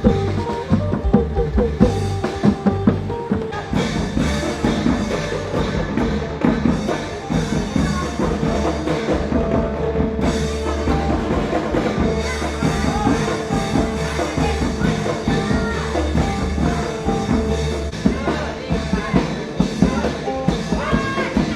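Music with a drum kit beat and a heavy bass line.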